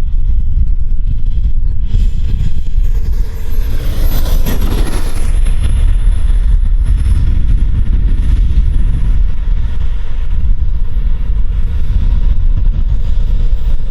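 Turbine of an RC jet (KingTech K86) in flight, a thin very high whine that sweeps down as the jet passes with a swell of jet noise about four seconds in, holds steady, then rises again near the end. Heavy wind rumble on the microphone underneath.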